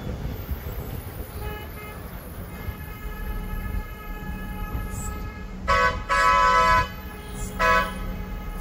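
Vehicle horn blown three times over a steady low engine and road rumble: a short blast about six seconds in, a longer one of nearly a second right after, and another short one near the end.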